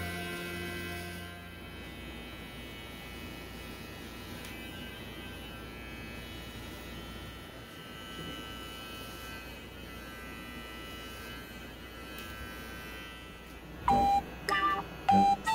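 Cordless electric hair clippers buzzing steadily as they cut hair. Music fades out in the first second or so, and loud, bright keyboard notes come in near the end.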